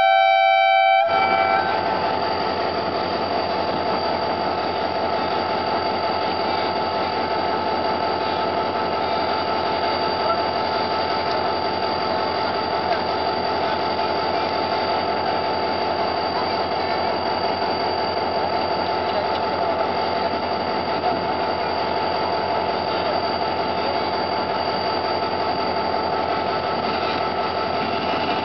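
A diesel locomotive's horn sounds as a chord of several tones and cuts off about a second in. Then the locomotive's diesel engine runs steadily at idle.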